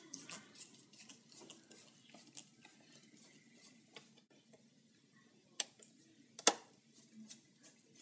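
Screwdriver turning the screws of a 27-inch iMac's memory access cover in its bottom edge: faint, scattered metallic ticks and clicks, with two sharper clicks between five and seven seconds in, the second the loudest.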